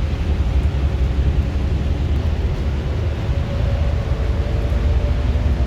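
Steady low rumble and rush of swollen floodwater, with wind buffeting the microphone. A faint droning tone joins in about halfway through.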